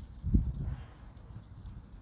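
Wind gusting against the microphone, an irregular low rumble that is loudest about a third of a second in, with faint bird chirps above it.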